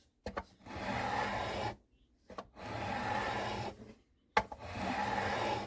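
Three long abrasive strokes rubbing on wood, each about a second and a half, with a short click at the start of each, like sanding or filing by hand.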